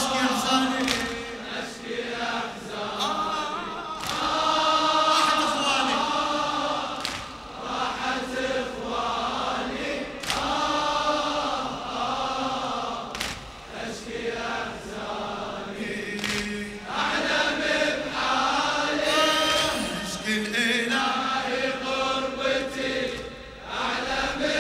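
A crowd of men chanting a Shia latmiyya refrain in unison, keeping time with sharp hand-strikes on their chests (latm) in a steady beat.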